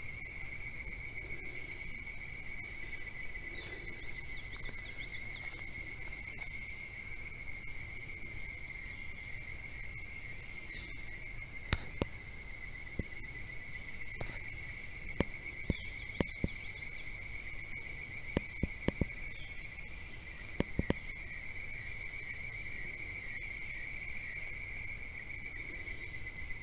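Steady insect chorus, one continuous high trill with a fainter, higher one above it. A scattering of short sharp clicks falls in the middle, from about twelve to twenty-one seconds in.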